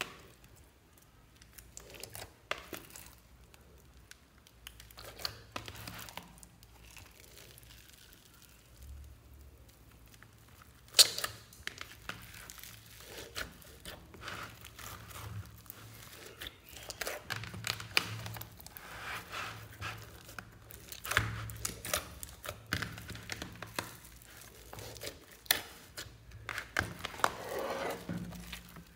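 Slime, foam-bead slime and clay being squished and mixed by hand: irregular wet crackles, pops and clicks, with one loud click about eleven seconds in and busier crackling in the second half.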